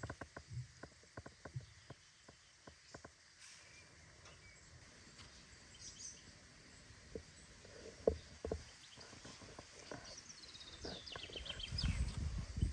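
Quiet outdoor ambience with scattered small clicks and rustles, and a soft thump about two-thirds of the way through. Near the end a songbird sings a quick trill of notes that fall in pitch, over a low rumble of wind.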